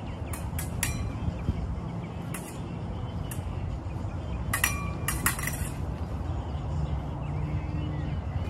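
Épée blades clinking against each other during fencing: scattered sharp metallic clinks with a brief ring, a few near the start and a quick cluster of four around the middle, over a steady low background rumble.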